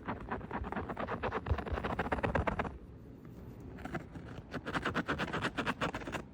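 Lovebird making rapid runs of short clicks and chirps in two bouts, with a pause of about a second in between.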